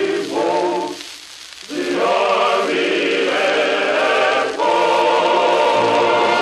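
Chorus and orchestra on a 1943 78 rpm shellac record, holding long sung notes, with a short drop about a second in and a louder held chord from about four and a half seconds. Steady record-surface hiss runs underneath.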